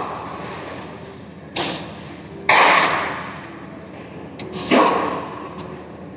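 Three sudden loud knocks with a trailing echo, about a second and a half in, a second later, and near five seconds.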